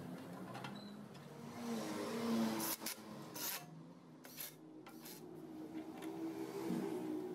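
Metal parts of a bench drill press being handled and fitted together during reassembly: rubbing and scraping, with a few short hissy bursts between about two and a half and five seconds in.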